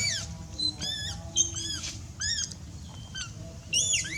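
Pet monkey giving a run of short, high-pitched squeaky calls, each rising then falling in pitch, about eight of them spread across the few seconds.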